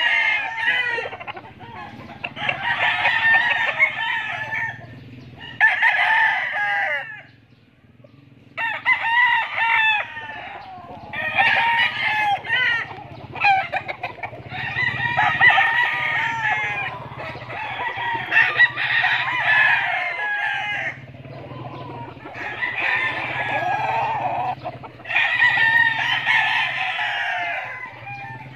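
Tethered gamecocks crowing over and over, one crow of a second or two after another with hardly a pause, and a brief lull about seven seconds in.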